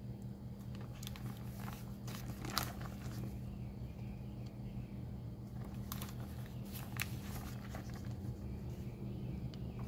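Glossy paper brochure pages being handled and turned, rustling a few times: around a second in, at about two and a half seconds, and twice near six and seven seconds. A steady low hum runs underneath.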